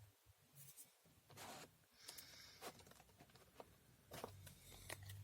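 Faint rustling and light clicks of a trading-card collection box's cardboard and plastic packaging and cards being handled, in short scattered bursts.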